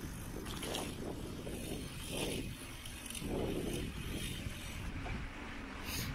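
Mountain bike rolling along a path: a steady low rumble of tyres and bike rattle that swells and fades every second or so.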